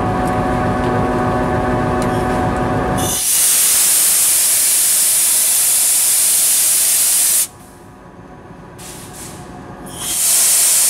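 Locomotive engine idling steadily. About three seconds in, a loud hiss of compressed air from the train's air brake hose takes over for about four seconds; a second loud blast starts near the end.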